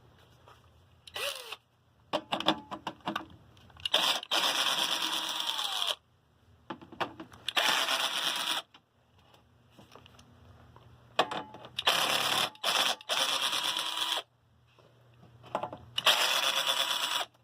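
Cordless power drill running in short bursts of one to two seconds, about six times, each ending with the motor whine winding down: driving out screws from a box fan's frame.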